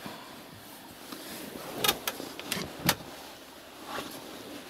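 A few short sharp knocks and clicks, four of them close together about two seconds in, over a faint steady hiss: wooden boards knocking as they are handled and moved.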